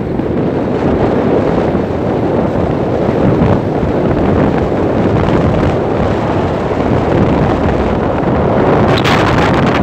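Loud, steady wind buffeting on a phone microphone mixed with vehicle and road noise, recorded from a moving vehicle. A brief sharper rustle about nine seconds in.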